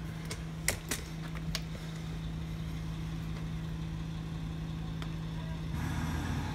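Steady low hum in a workshop, with a few light clicks and taps in the first second and a half from a small plastic container being handled, and a brief hiss near the end.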